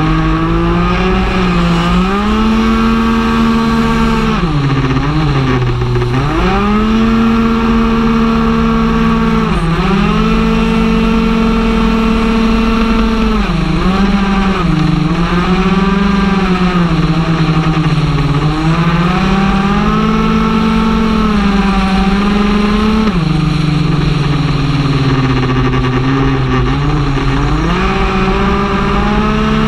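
Two-stroke Stage6 R/T 95cc big-bore engine of a tuned Piaggio Zip racing scooter at full throttle through its CVT. It is heard onboard at speed. The note holds high and steady for long stretches, then drops sharply and climbs back several times as the rider slows and reaccelerates.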